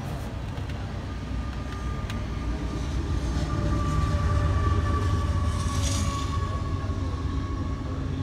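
Steady low mechanical rumble, vehicle-like, growing louder about halfway through, with a faint thin whine over it in the middle.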